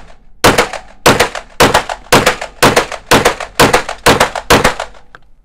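Canik TP9 SFX Mete 9mm pistol fired in a steady rapid string of about nine shots, roughly two a second, stopping shortly before the end. Each shot echoes briefly off the walls of an indoor shooting range.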